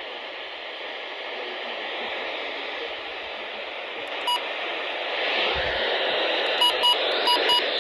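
Steady hiss of radio static from a weather radio receiver. About halfway there is one short electronic beep, and near the end a run of short beeps, about four a second.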